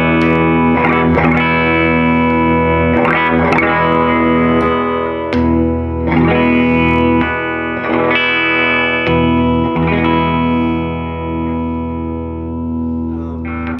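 2019 Gibson Les Paul Classic electric guitar played through an amplifier with overdrive: chords strummed every second or two and left to ring, then muted suddenly at the end. One of the guitar's extra switching modes (out-of-phase or tone-stack bypass) is engaged, and it audibly changes the tone.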